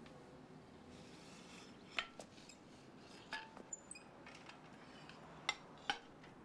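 About five sharp metallic clicks and clinks, some with a brief ring, as a wheelchair's metal footplates are handled and folded up. The loudest come about two seconds in and twice near the end.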